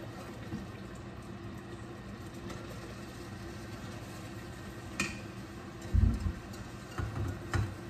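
A wooden spoon scraping cooked rice out of a ceramic bowl into a pot, with a sharp tap about five seconds in and several dull knocks after that, the loudest at about six seconds, over a steady low mechanical hum.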